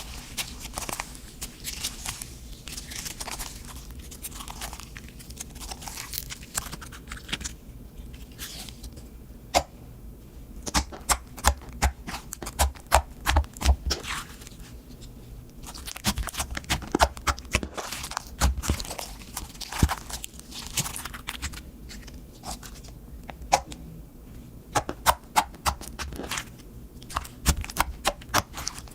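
Slime being kneaded and stretched by hand: sticky squishing with irregular flurries of sharp clicking and popping.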